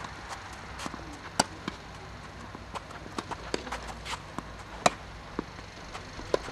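Tennis rally: sharp pops of rackets striking the ball. The two loudest come from the near player, about a second and a half in and again near five seconds in, with fainter hits and ball bounces from farther down the court.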